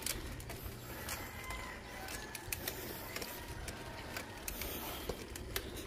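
Bicycle being ridden uphill: faint steady riding and wind noise with scattered light clicks.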